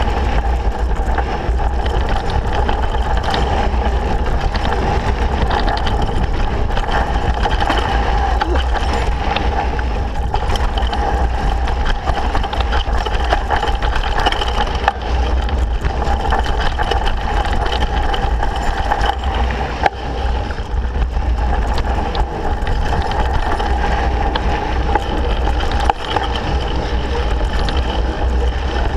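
Mountain bike descending a dirt singletrack: steady wind rush and rumble on the microphone over the tyres' noise, with a few sharp knocks as the bike hits bumps.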